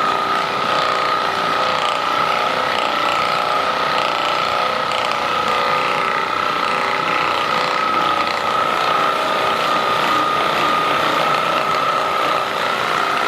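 Handheld percussion massage gun running steadily: its motor whines at one constant pitch over a fast mechanical rattle.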